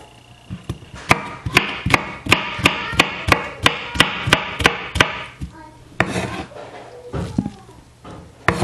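Kitchen knife chopping fruit on a wooden cutting board: about a dozen quick, even strokes, roughly three a second, then a few scattered knocks of the blade on the board near the end.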